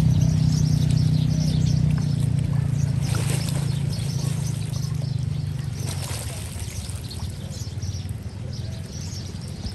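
A steady low hum that fades away over the second half, with high bird chirps and a trickle of water.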